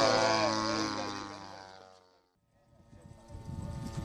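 Radio-controlled model airplane engine running at a steady pitch, fading away to silence just past two seconds in, then fading back in with a model engine and rushing noise.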